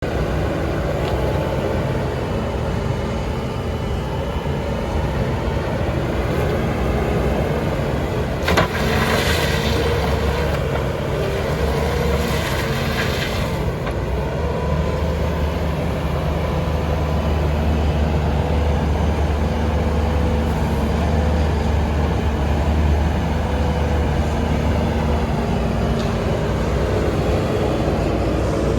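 A Bobcat S770 skid steer's four-cylinder diesel engine running steadily. A click comes about eight and a half seconds in, followed by two short bursts of hiss, and the low engine hum grows stronger through the middle of the stretch.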